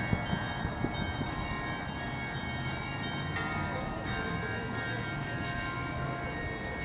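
Church bells ringing, many tones overlapping and hanging on, with a couple of fresh strikes in the first second, over a low background rumble.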